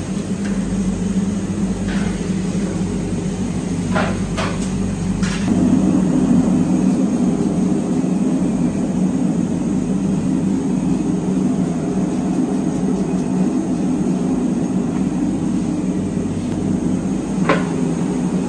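Steady low hum of the bakery's gas-fired flame oven running, with a few short sharp knocks from the wooden peel being handled: four in the first six seconds and one more near the end.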